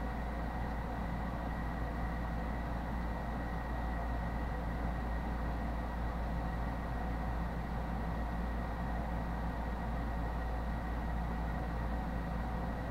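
Steady low droning hum with hiss and a faint high tone, even throughout with no clicks or other events.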